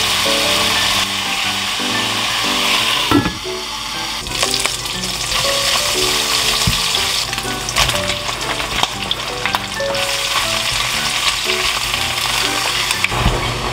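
Bite-sized pork neck pieces sizzling as they fry in a stainless steel pan, stirred with a spatula, with occasional sharp clicks of the utensils against the pan. Soft background music plays underneath.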